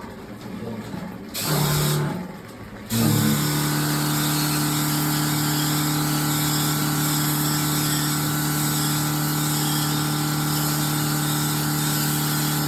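An electric machine is switched on briefly, stops, then starts again about three seconds in. It then runs with a steady hum and a rushing noise.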